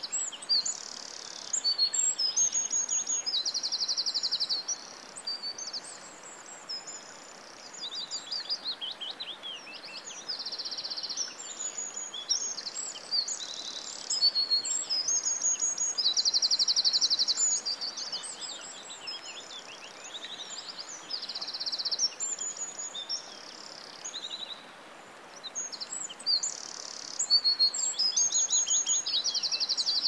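Songbirds singing and calling: a busy mix of high chirps and whistled notes with repeated buzzy trills lasting about a second each, over a faint steady hiss.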